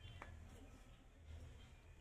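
Near silence: room tone with a faint low hum, and one faint click just after the start.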